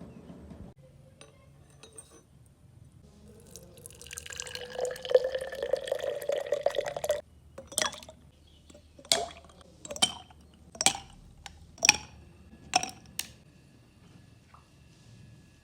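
Coffee poured into a cup for about three seconds, the pitch of the pour rising as the cup fills, then stopping sharply. This is followed by about seven ringing clinks, roughly one a second.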